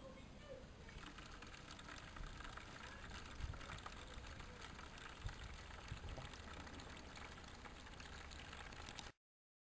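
Faint, steady outdoor background hiss with a few soft low knocks, and no engine running. The sound cuts off abruptly near the end.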